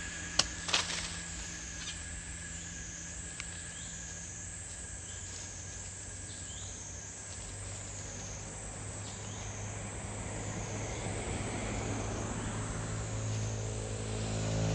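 Insects buzzing steadily in a high, regularly wavering drone over a low engine-like hum that grows louder toward the end. Two sharp clicks come in the first second.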